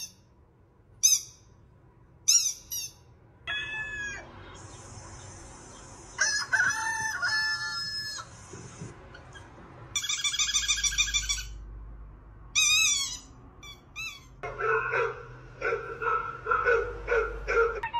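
A rapid series of short animal sound effects played back one after another, mostly bird and fowl calls: quick high chirps, squawks and longer pitched calls, each lasting a second or two with short gaps between. Near the end comes a run of repeated calls, a few a second.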